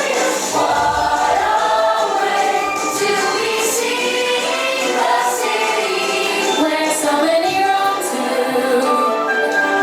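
A song with a choir of voices singing over instrumental music.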